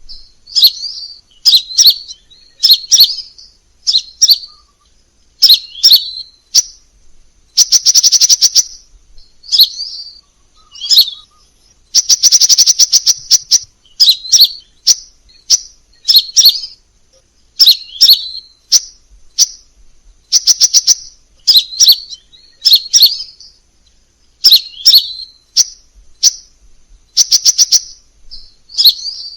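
Crimson sunbird calling: short, high, sharp chirps about once a second, broken by a few fast rattling trills, the longest and loudest a little under halfway through.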